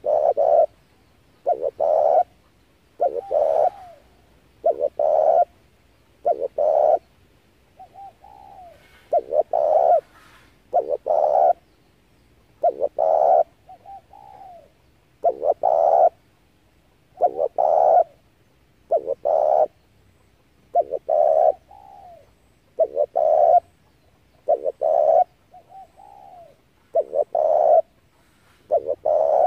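Spotted dove cooing: its song of paired coos repeated about every two seconds, with a few softer, gliding notes between some of the phrases.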